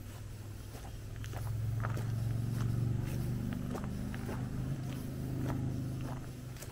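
Low engine hum of a passing motor vehicle, swelling up, easing and swelling again before fading, under steady footsteps of a walker on the trail.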